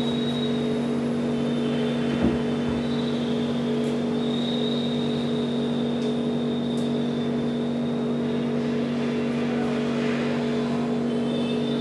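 A steady mechanical hum with a constant low pitch, and a single short knock about two seconds in.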